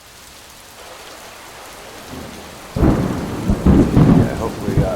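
Steady rain hiss, then thunder breaks in suddenly about three seconds in as a loud low rumble that swells and ebbs.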